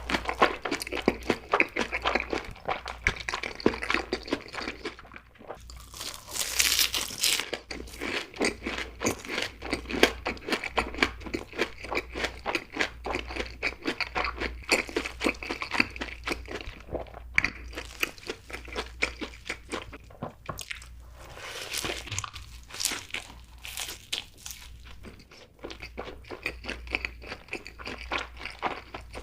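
Close-miked eating of crispy fried food: a rapid, continuous run of crunching bites and chewing, with brief rustling stretches about seven seconds in and again past twenty seconds.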